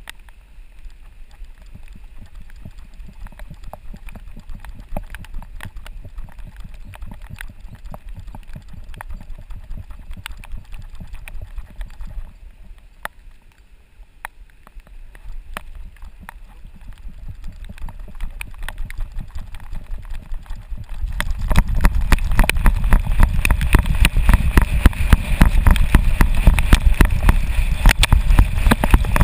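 A GoPro strapped to a running dog's back in a Fetch harness picks up a rapid, uneven thumping and rattling from the dog's strides and paws on leafy ground. The thumping gets much louder about two-thirds of the way in as the dog runs flat out.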